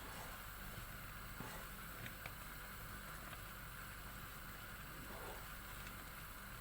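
Pot of strawberry jam cooking on the stove: a faint steady hiss with a few soft ticks and pops.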